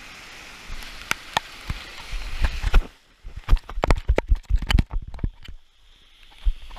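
Floodwater rushing, a steady noise, then from about three seconds in a run of loud knocks and bumps as the phone is jostled and handled, with the water muffled in between.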